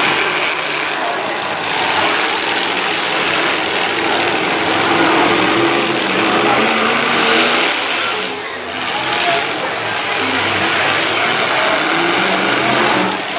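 Several demolition derby cars' engines running and revving together, their pitch rising and falling as they accelerate and push.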